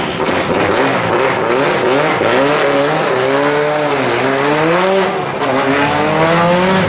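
Track car's engine being driven hard, its pitch climbing, falling around four seconds in, then climbing again.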